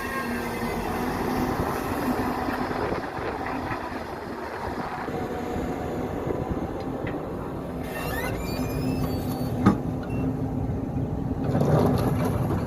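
Hyundai R220 hydraulic excavator's diesel engine running steadily under working load, with one sharp knock late on.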